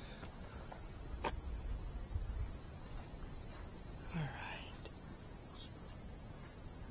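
Steady, high-pitched chorus of insects in the trees, droning without a break, with a few faint clicks of footsteps beneath it.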